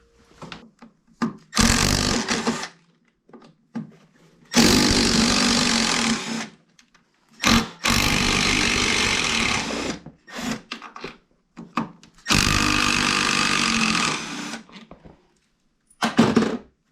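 Power driver with a T25 Torx bit running in bursts of one to two seconds, five times, backing out the screws that hold the reverse servo to the snowmobile's chaincase. Light clicks of tools and parts come between the runs.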